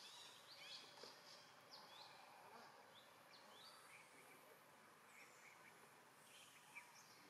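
Faint outdoor ambience: a quiet hiss with small birds chirping, many short quick high chirps that thin out after about four seconds.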